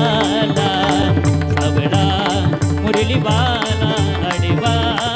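Marathi devotional song music between sung lines: a wavering melody over a quick, steady drum beat of about four strokes a second, with no words.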